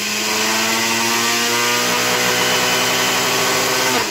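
Small personal blender's motor running steadily, grinding a dry sugar and stump-remover mix into a finer powder, its whine creeping up slightly in pitch. It begins to wind down at the very end as the cup is released.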